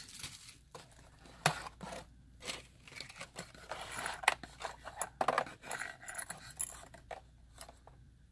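Hands rummaging through plastic blister packs of metal miniatures inside a cardboard box: a steady run of light clicks, taps and scrapes.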